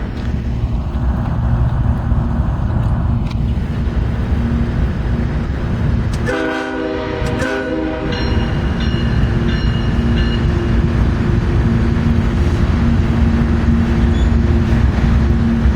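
Diesel locomotives and rail cars of a freight train running past with a steady heavy rumble. About six seconds in, a locomotive air horn sounds one blast of about a second and a half.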